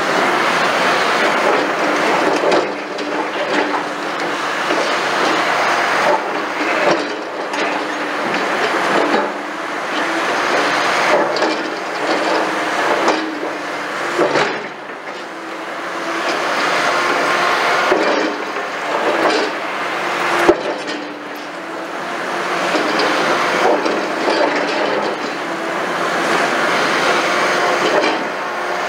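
Liebherr R960 demolition excavator's engine and hydraulics running steadily while its bucket digs and scrapes through concrete rubble, with debris rattling and a few sharp clanks.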